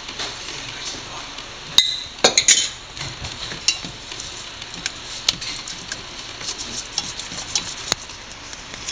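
Raw salmon pieces being mixed and rubbed with salt, pepper powder and lemon juice in a bowl: a wet, squelching, crackly stirring noise with many small clicks, and a few sharp clinks against the bowl about two seconds in.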